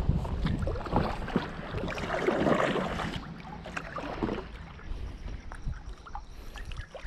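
Double-bladed paddle stroking through the water beside an inflatable pack raft, with splashing and dripping and small knocks; the strokes grow quieter after about three seconds.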